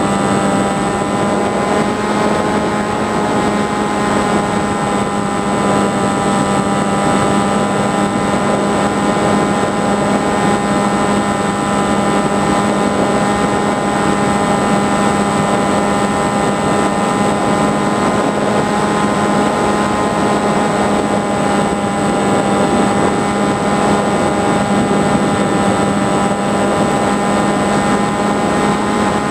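FPV flying wing's motor and propeller running at a steady cruise, heard from on board as a constant droning whine with rushing air noise.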